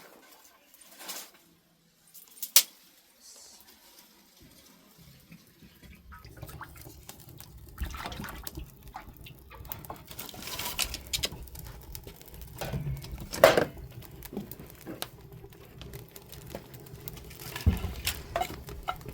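Liquid pouring and sloshing in a cooking pot, with scattered knocks and clinks; one sharp knock stands out about 13 seconds in.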